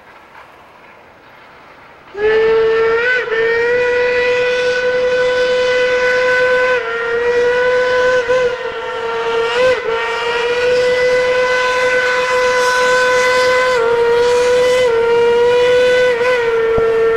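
Steam locomotive's hooter whistle blowing one long, steady blast that starts about two seconds in, with a few brief wavers in pitch.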